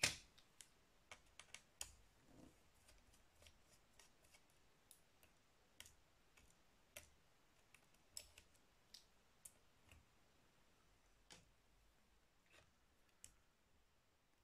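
Faint, irregular small clicks and taps from a small screwdriver, screws and laptop parts being handled during disassembly. The clicks are closest together and loudest in the first couple of seconds, then come sparser.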